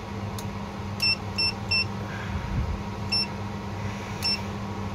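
Short, high-pitched electronic beeps from a handheld digital multimeter as its buttons are pressed to change mode, five of them at uneven intervals, over a steady low hum.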